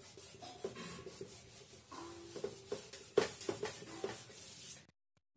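Whiteboard being wiped clean: dry, scratchy rubbing strokes with a few short squeaks, which stop abruptly near the end.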